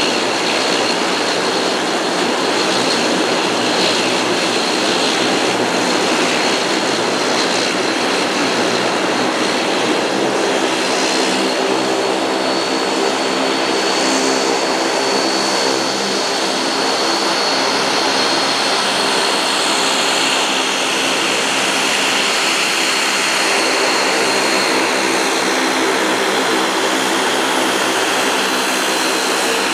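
Dash 8 Q400's twin PW150A turboprop engines running with their six-bladed propellers turning: a loud steady drone with a high whine on top. About ten seconds in, a deeper buzzing tone joins, and it carries on as the aircraft turns and taxis away.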